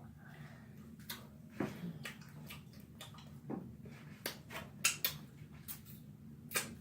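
Close-up eating sounds: wet chewing and lip-smacking, a series of short sharp smacks and clicks that come a few times a second, busier in the second half, over a faint steady low hum.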